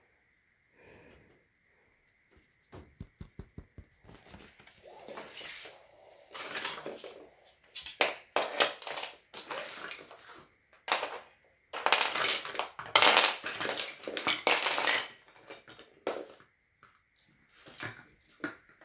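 Wooden chain-reaction toy pieces clattering and knocking together as a hand rummages through their box and lifts them out onto the floor. It starts with a quick run of clicks, grows into loud, dense rattling through the middle, and thins to scattered knocks near the end.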